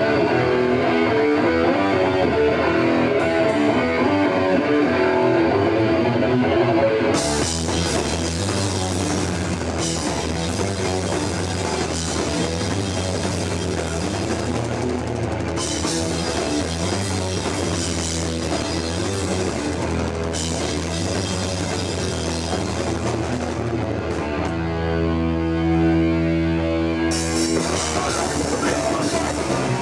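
Punk band playing live through amplifiers. An electric guitar riff opens with no cymbals, then drums and bass come in at full volume about seven seconds in. Near the end the band holds one ringing chord for about three seconds before the drums drive back in.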